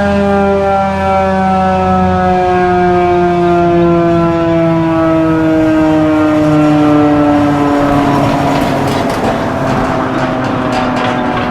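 Federal Signal 2001-DC Roundback rotating siren winding down, its pitch falling slowly toward the end of the test. In the last few seconds the noise of a passing vehicle rises under it.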